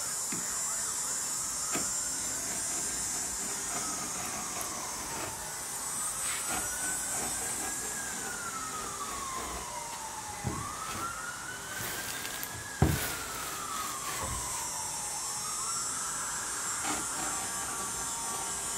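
Emergency vehicle siren in a wail pattern, its pitch climbing and then sliding slowly down again about every four to five seconds. A single sharp knock comes about two-thirds of the way through.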